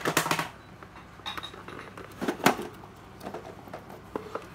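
Hard plastic power-tool battery chargers knocking and clattering as they are handled and shifted, with a cluster of knocks at the start, a sharp knock about two and a half seconds in, and lighter ticks in between.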